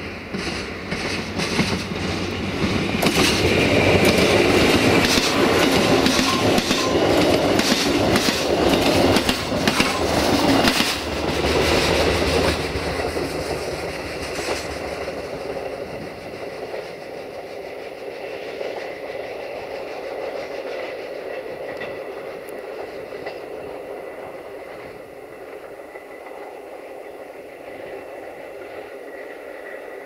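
Duewag BR628 diesel multiple unit passing close by, its wheels clattering rapidly over the rail joints and points. The sound is loudest from about three to twelve seconds in, then fades to a quieter rumble as the train draws away.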